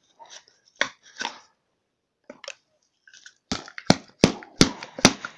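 Sharp knocks and clicks as a cardboard single-shot firework tube is handled and its cap is pried at with a short screwdriver: two light clicks about a second in, then five sharp knocks in quick succession near the end.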